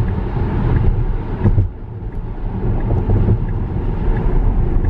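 Road and tyre noise inside the cabin of an electric Tesla Model S cruising at freeway speed: a steady low rumble with no engine note.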